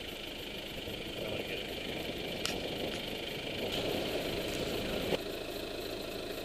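A vehicle engine running steadily, with a small click about two and a half seconds in and a slight drop in level around five seconds in.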